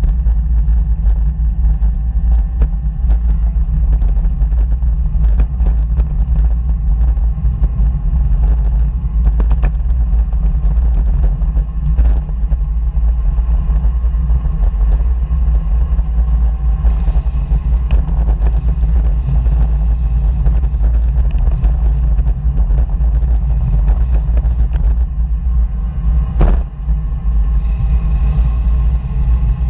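Steady low rumble of wind and road noise on the microphone while cycling, with scattered light knocks and one sharper knock about 26 seconds in.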